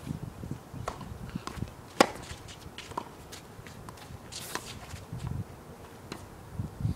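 Tennis rally on a hard court: sharp pops of racket strikes and ball bounces, the loudest about two seconds in, with shoe scuffs on the court.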